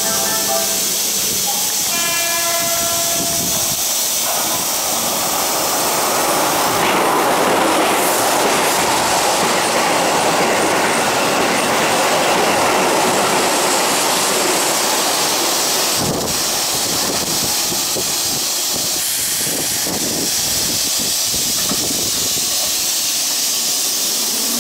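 Keihan 8000 series electric train passing through a station at speed. A brief horn-like tone sounds about two seconds in, then the rush and clatter of wheels over the rail joints builds, is loudest in the middle as the cars go by, and is broken by one sharp bang about 16 seconds in.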